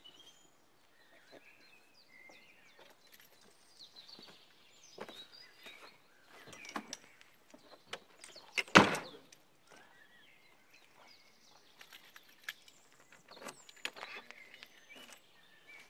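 Eura Mobil Integra Line motorhome's entry door pulled shut with a single loud thunk about halfway through, with smaller clicks and knocks at the door handle and lock before and after. Birds chirp faintly in the background.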